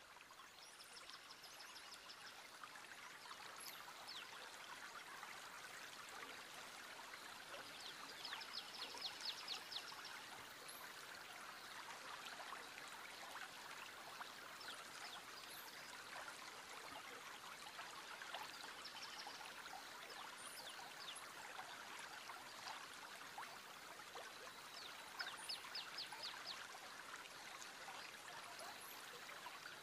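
A stream running steadily, heard quietly, with bird calls over it: a rapid high trill that comes back several times and faint short chirps.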